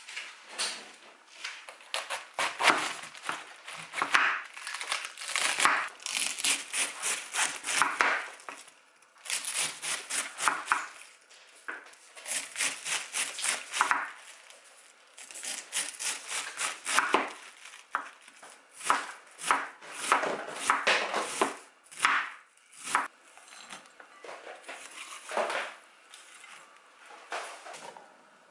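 A kitchen knife chopping food on a cutting board in quick runs of strokes, several a second, with short pauses between runs.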